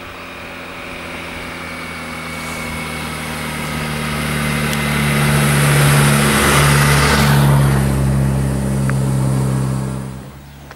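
A motorcycle and a car passing close at low speed. Steady engine hum with tyre and wind noise swells as they approach and is loudest a little past the middle, then drops away abruptly near the end.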